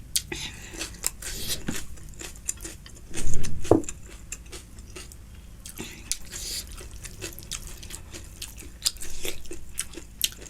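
Close-miked chewing and biting of food, with wet mouth clicks and smacks throughout and a louder, noisier burst about three seconds in.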